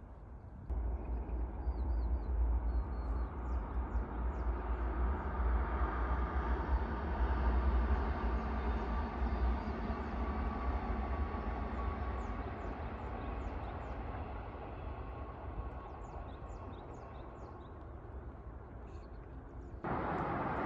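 Passenger train running past on a nearby line: a steady rumble that builds for several seconds and then slowly fades, with small birds chirping faintly over it. Near the end it gives way abruptly to a louder, even noise of road traffic.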